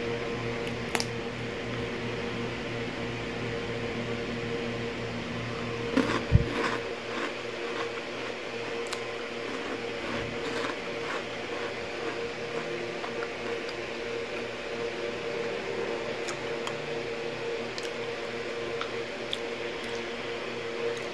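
Crunchy toasted pandesal biscuit being snapped and chewed: scattered sharp cracks, loudest in a cluster about six seconds in. Under them runs a steady electrical hum.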